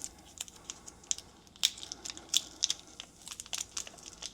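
Irregular crinkling and crackling, with scattered sharp clicks, as a rubber tire-repair plug strip is taken out of its tire plug kit.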